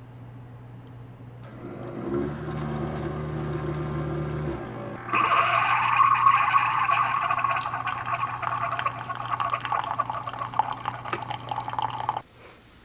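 Keurig single-serve coffee maker brewing: the machine hums for a couple of seconds, then coffee streams from the spout into a ceramic mug, the stream stopping abruptly just before the end.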